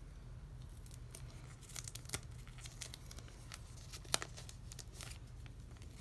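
Crinkling and crackling of a clear plastic card sleeve as a photocard is handled and slid out of it: a run of small crackles, with a sharper one about two seconds in and another about four seconds in.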